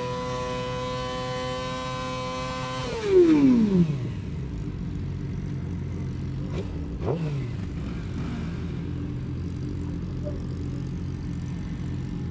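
Sport-bike engine held at steady high revs for about three seconds during a burnout, then falling back to idle. After that, motorcycles idle, with one short rev blip about seven seconds in.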